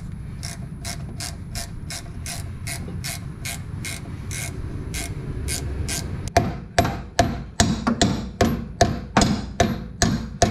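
Ratchet wrench clicking in a steady rhythm, about two to three clicks a second, as it backs the nut off an old sway bar end link bolt. The clicks get louder about six seconds in.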